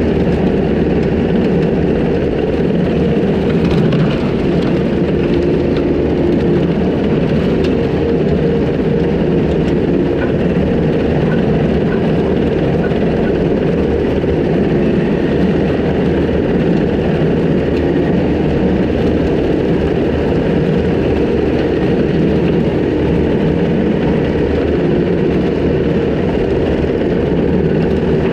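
Takeuchi TL250 compact track loader's diesel engine running steadily under load, with its skid-steer brush cutter mowing tall wet grass and brush.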